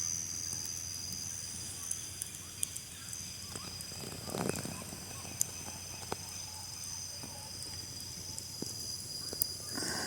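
A steady, high-pitched chorus of night insects, with scattered sharp crackles from a wood campfire and a brief rustle about four and a half seconds in.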